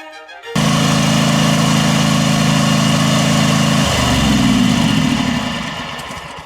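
An engine running steadily, cutting in abruptly about half a second in; its tone changes a little past the middle, and it fades away over the last couple of seconds.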